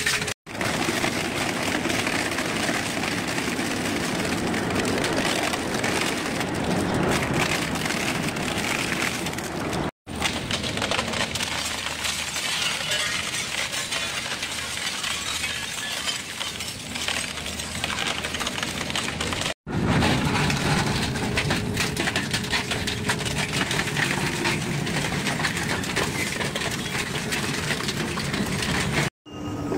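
Industrial double-shaft shredder crushing and tearing a series of loads, first green plastic rods, then a metal-framed panel, then a panelled door: a dense, steady crackling and cracking of material breaking between the cutter discs. Brief dead gaps about ten and twenty seconds in, and again near the end, where one load gives way to the next.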